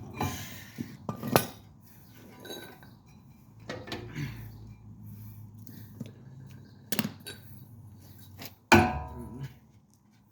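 Metal clinks and knocks as steel brake parts and hand tools are handled while a brake caliper carrier is taken off. A few separate strikes, the loudest near the end with a short ring.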